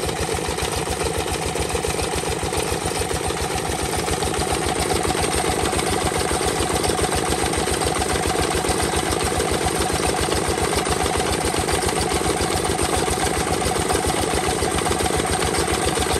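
S1100NL single-cylinder horizontal diesel engine running steadily, with a rapid, even exhaust beat that grows slightly louder about four seconds in.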